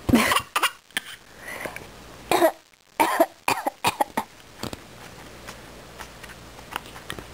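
A baby's pretend coughs: a run of short, forced coughs in the first four seconds, then it goes quieter.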